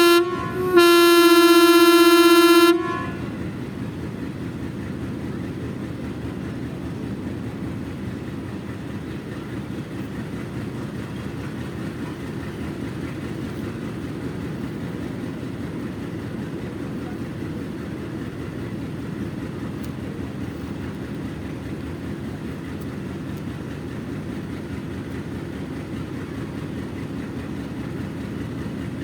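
Locomotive HBU 20-8045 sounds a short whistle blip, then one steady whistle blast of about two seconds. After that its steady running rumble continues.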